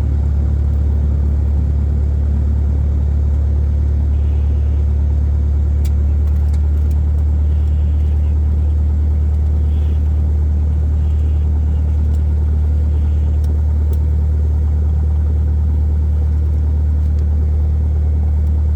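Small aircraft's engine and propeller droning steadily in level flight, heard from inside the cabin as a loud, unchanging low hum.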